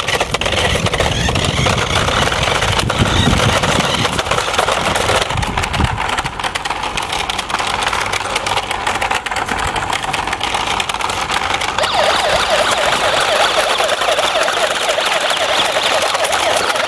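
Siren from a toy RC police car, a fast repeating warble that starts about twelve seconds in, over a steady noisy rush with rumble in the first few seconds.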